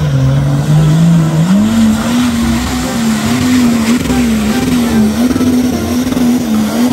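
Nissan Patrol off-road 4x4's engine labouring as it climbs a muddy slope, its pitch stepping up about a second and a half in and then wavering up and down as the driver works the throttle.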